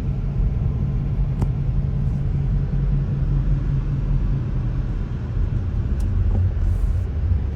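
Steady low engine and road rumble of a car being driven, heard from inside the cabin, with a couple of faint clicks.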